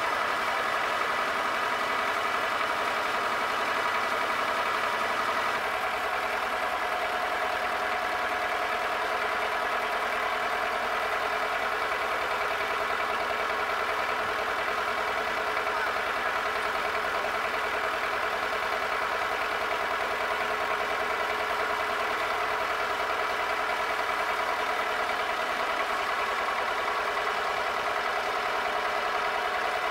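Tractor engine idling steadily, its note shifting slightly about six seconds in.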